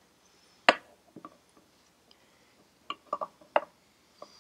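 Light metal clicks and taps as the aluminium oil pump body is pressed back over its gasket onto a Citroën 2CV crankcase half. One sharp click comes a little under a second in, and a quick cluster of taps follows past the midpoint.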